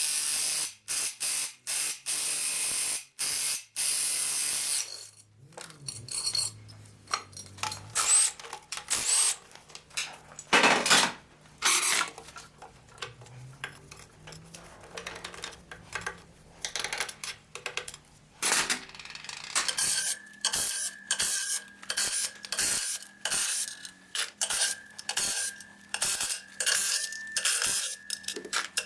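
Ratchet wrench working fasteners loose in repeated bursts of clicking, with short pauses between them. The bursts run longest at the start and come evenly spaced near the end.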